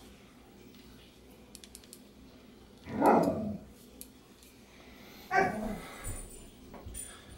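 A dog barking twice: one call about three seconds in that drops in pitch, and a shorter one around five and a half seconds in.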